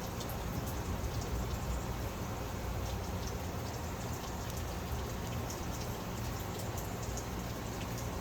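Steady hiss of background noise with scattered faint light ticks.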